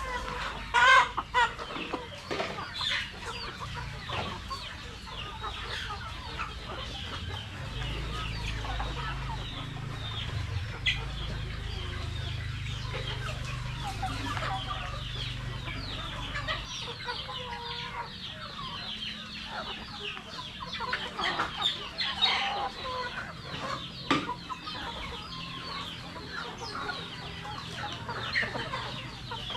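A flock of Rhode Island Red chickens clucking and chirping, many overlapping short calls, with a low hum underneath for about the first half.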